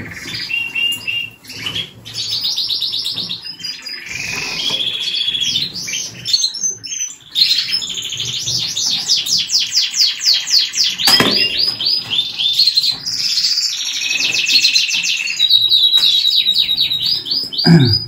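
Canaries singing: long rolling trills and fast runs of repeated chirping notes, one tour after another.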